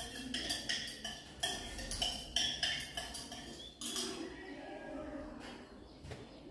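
A stirrer clinking rhythmically against the inside of a small glass beaker, about three strokes a second, as sodium hydroxide solution and oil are stirred together for soap. The strokes grow fainter about four seconds in.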